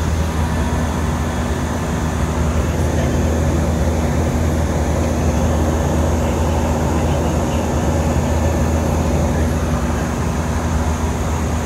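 Steady jet airliner cabin noise in flight: the engines' low drone and rushing air heard from inside the cabin, unchanging throughout.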